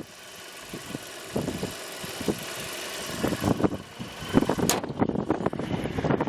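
Wind buffeting the microphone outdoors: irregular low rumbling gusts over a steady background hiss, strongest in the second half.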